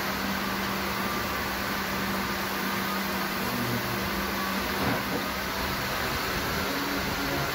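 Steady machine hum with a constant low tone and an even hiss, with a light knock about five seconds in.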